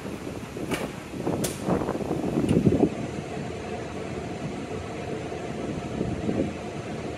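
A few sharp metallic clicks and clanks in the first three seconds as welding gear is handled at a MIG welder, then a steady machine hum like a cooling fan running.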